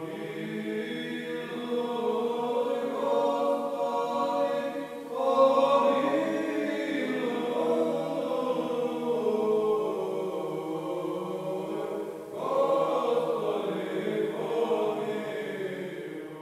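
Male voices chanting an Orthodox church chant in long sustained phrases over a low held note, with new phrases starting about five and twelve seconds in.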